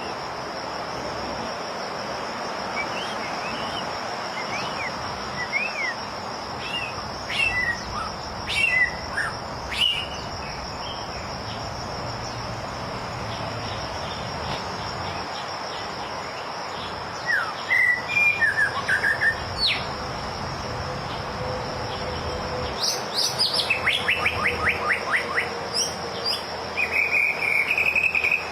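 White-rumped shama singing in scattered bursts of varied clear whistled phrases, including a fast run of rapidly repeated notes a little past two-thirds of the way through. Beneath it runs a steady high-pitched insect drone.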